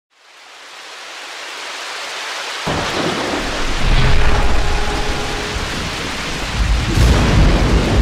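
Rain and thunder sound effect: a rain hiss fades in, then a low thunder rumble starts suddenly about two and a half seconds in. The rumble swells around four seconds and again near the end.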